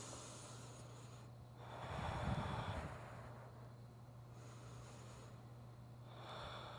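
A person breathing slowly and audibly, with the loudest breath about two seconds in and a fainter one near the end. A faint steady low hum runs underneath.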